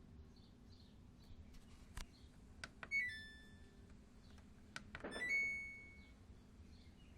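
Samsung WD136 front-load washer-dryer control panel: a few button clicks, each answered by a short electronic beep. Two beeps, about three and five seconds in.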